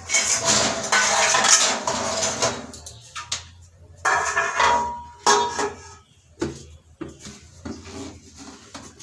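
Stainless steel plates and utensils clattering and clanking as they are stacked into a dish rack, with a short metallic ring about four and a half seconds in, then scattered knocks.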